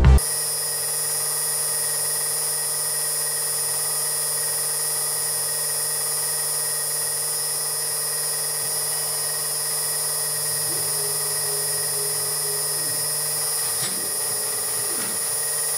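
Spindle of a home-built CNC milling machine running steadily with a high whine, the end mill spinning free above the cam blank before it cuts. Over the last few seconds the axis drives move the head, adding a whine that rises and falls in pitch, with one faint click.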